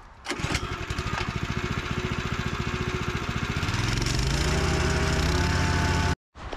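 Small petrol engine of a plate compactor running at a low speed with a rapid even putter, then revving up about three and a half seconds in and holding a steady higher speed. It cuts off suddenly near the end.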